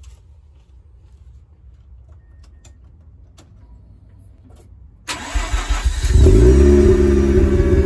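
Mazda RX-8's 13B Renesis twin-rotor rotary engine being started, heard at the R Magic aftermarket muffler: a few faint clicks, then about five seconds in the starter cranks for about a second and the engine catches, its pitch rising briefly before it settles into a steady idle.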